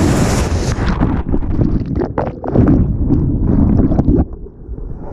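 Rushing whitewater crashing around a raft as it drops through a rapid, with wind buffeting the microphone. About a second in, the sound turns muffled and dull, with scattered knocks and splashes, before easing off near the end.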